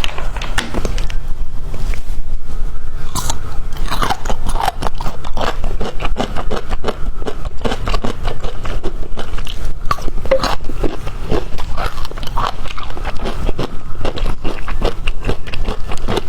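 Close-miked biting, crunching and chewing of bamboo shoots, a steady stream of irregular crisp crunches and wet chewing clicks.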